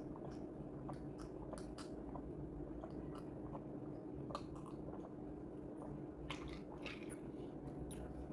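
Mouth sounds of drinking milk from a glass mug: small sips and swallows close to the microphone, with a faint steady hum underneath.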